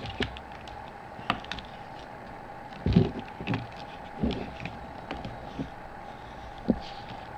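Plastic packaging being cut open with a small pocketknife blade: scattered clicks and knocks of handling, with a few louder thumps about three, four and seven seconds in, over a steady background hum.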